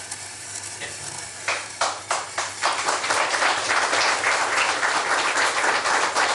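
Studio audience applauding: a few scattered claps about a second and a half in, quickly swelling into steady applause.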